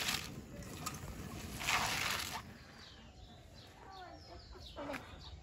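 Salted shredded cabbage being squeezed and kneaded by hand in a steel bowl, giving two wet, crunchy bursts in the first half. After that, hens cluck faintly and small birds chirp.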